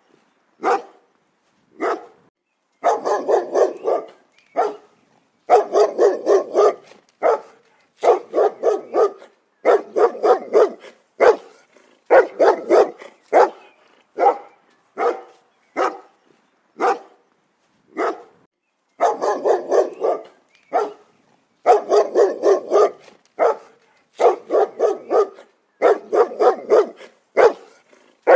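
A dog barking repeatedly, with single barks and quick runs of several barks in a row, separated by short pauses.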